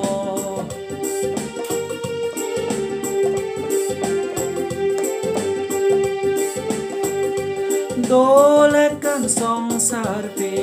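Instrumental break in a Chakma song: an electronic keyboard holds a long note and plays a melody over a steady beat. About eight seconds in, a lead line slides up and down in pitch.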